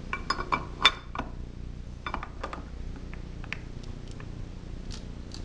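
Metal clicks and clinks of a starter clutch tool and its handle being worked against the flywheel holder while the starter clutch is tightened onto a Briggs and Stratton 5 HP engine. A quick cluster of sharp clicks comes in the first second or so, then scattered single clicks, over a low steady hum.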